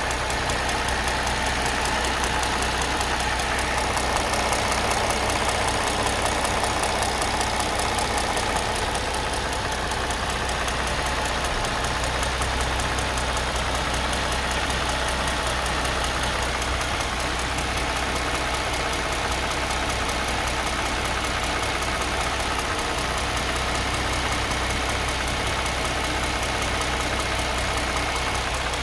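Mercedes-Benz M272 V6 engine running at low revs with a rapid tapping and a faint steady squeak. This is the tap and squeak the owner hears between 700 and 1500 rpm.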